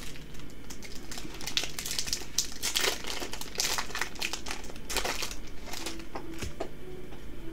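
Foil wrapper of a Yu-Gi-Oh booster pack crinkling and tearing in the hands as the pack is opened and the cards are pulled out, an irregular run of crackles.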